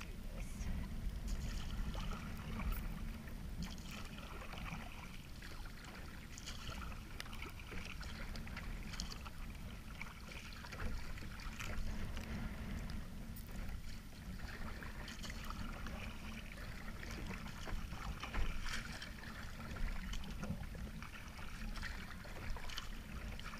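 Small waves lapping and splashing irregularly against the plastic hull of a sit-on-top kayak, over a steady low rumble.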